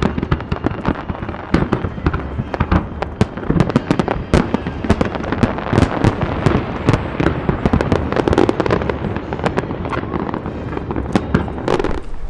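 Aerial fireworks display: a dense, rapid run of sharp bangs and crackles from many shells bursting over a steady low rumble. It cuts off abruptly near the end.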